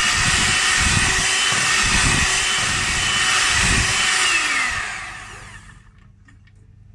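Electric hand mixer beating a liquid cake batter in a bowl, its motor running steadily, then switched off about four and a half seconds in, the whine falling away as the beaters spin down.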